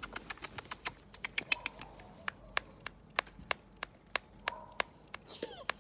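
A rapid run of sharp clicks, unevenly spaced at about three to four a second, with a faint high chirp near the end.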